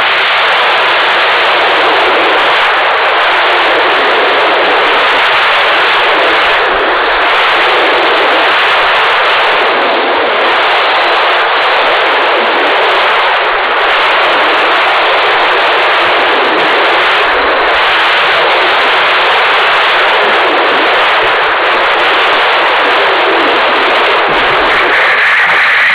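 Airflow rushing over the onboard camera's microphone on a radio-controlled glider in flight: a loud, steady hiss that stops abruptly at the very end.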